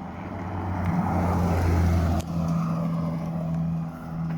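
A car engine running at low revs, swelling louder over the first two seconds, then dropping abruptly to a steady, lower note.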